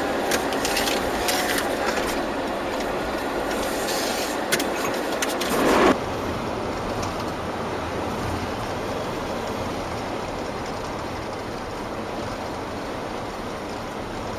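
Road and wind noise inside a moving car: a steady rushing hiss with scattered light knocks that is louder and busier for the first six seconds, cuts down abruptly, then runs on as a smoother hush that slowly fades.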